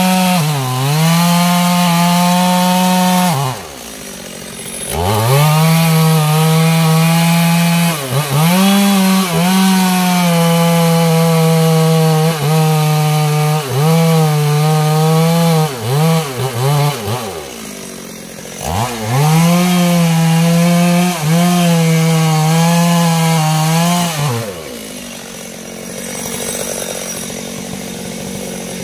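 Stihl chainsaw cutting into the trunk of a standing teak tree at full throttle, its engine note steady under load. It eases back to idle several times between cuts and idles for the last few seconds.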